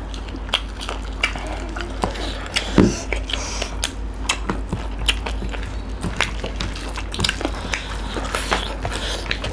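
People eating rice and duck curry with their hands close to the microphone: wet chewing, lip smacks and fingers working the food, heard as many short sharp clicks, with one louder one about three seconds in.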